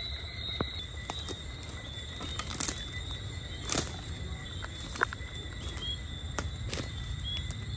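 Steady high trill of night insects, with a few short chirps near the end and scattered sharp clicks.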